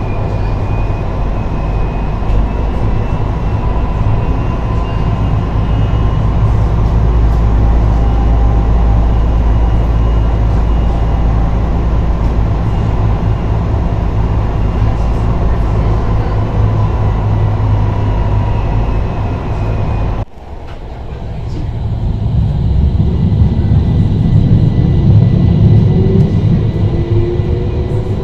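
Tram running along its track: a steady low rumble of wheels on rails with a faint electric motor whine. About two-thirds of the way through the sound drops suddenly, then builds back up with a whine rising in pitch as the tram picks up speed.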